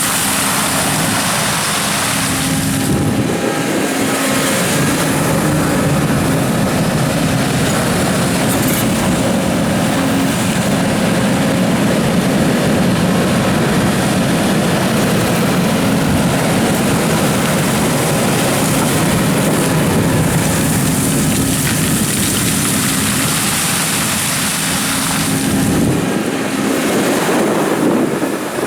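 Doosan DX300 tracked excavator working, its diesel engine running steadily under load, with a rough mechanical clatter that swells and eases as it digs.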